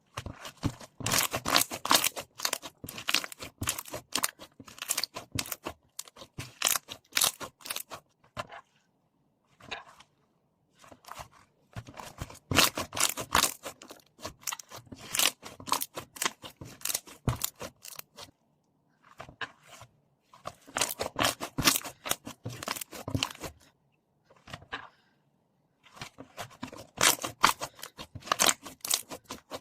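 Foaming slime being squeezed and pressed by hand, giving dense crackling and popping clicks that come in bursts of several seconds with brief pauses between.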